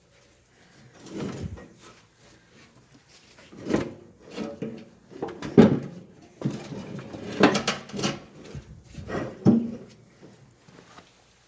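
A series of irregular knocks and clunks with scraping between them, like parts and tools being handled on a workbench. The loudest knock comes about halfway through.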